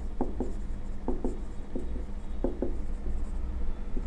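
Marker writing on a whiteboard: short, irregular strokes and taps as letters are written, over a steady low hum.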